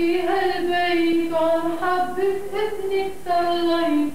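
Women's and children's voices singing a hymn together in unison without accompaniment, in held, steady notes.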